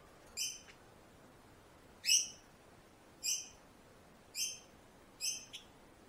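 Budgerigar held in the hand giving five short, high-pitched calls, the last with a small second note close behind it.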